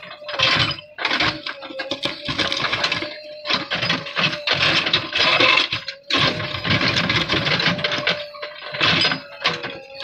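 JCB 3DX backhoe loader's rear bucket digging and dragging through stony soil: irregular crunching and grinding of rocks and earth, in repeated bursts with brief lulls near the start and midway. A steady tone runs underneath.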